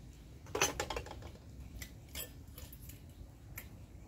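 Metal ladle clinking and scraping against a metal cooking pot as food is dished out. A small cluster of sharp clicks comes about half a second in, then scattered single clicks.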